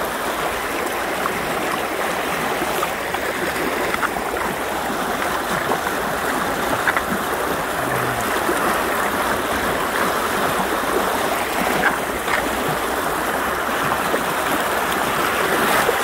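Swollen, muddy mountain stream in spate rushing over rocks: a steady, loud rush of fast water, the current very strong.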